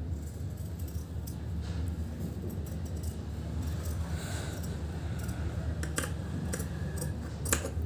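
Scissors cutting through paper buckram, with a rustle of the stiff sheet and a few sharp snips near the end, over a steady low hum.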